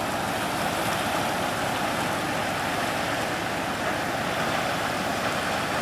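Steady rushing of a flowing river, an even unbroken wash of water noise.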